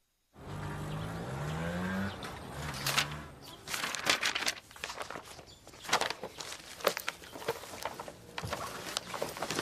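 A low hum that rises in pitch over the first couple of seconds, then paper rustling and clothes and objects being handled, with scattered clicks and knocks as things are picked up and set down.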